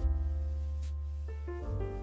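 Background piano music: held chords over a deep bass, a new chord struck at the start and a few higher notes coming in about halfway through.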